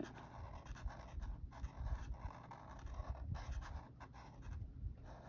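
A marker scratching steadily back and forth on paper as a small section of a savings tracker is colored in.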